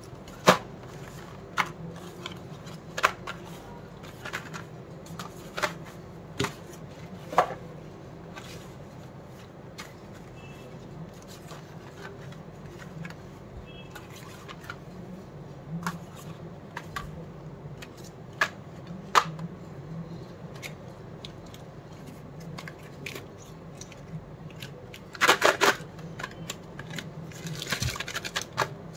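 Small cardboard candy boxes being set down and handled, each landing with a sharp tap, a dozen or so in all. A quick cluster of clicks comes about 25 seconds in, and near the end a plastic wrapper crinkles as it is pulled from a box. A low steady hum runs underneath.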